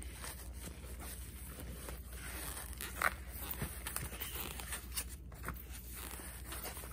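Hands rummaging in the front zip pocket of a vinyl Loungefly mini backpack and pulling out its white packing stuffing: soft rustling and scraping with a few light clicks, the sharpest about three seconds in.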